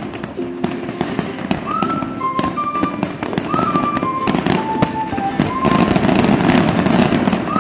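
Fireworks bursting and crackling in quick succession, heard over music with a melody of held notes. The crackle grows denser and louder towards the end.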